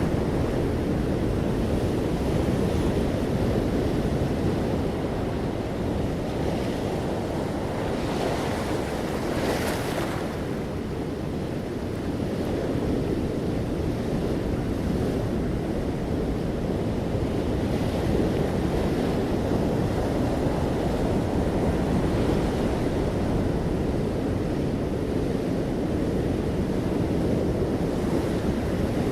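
Ocean waves breaking on a shore, a continuous low rush of surf, with one brighter, hissier wave washing in about eight to ten seconds in.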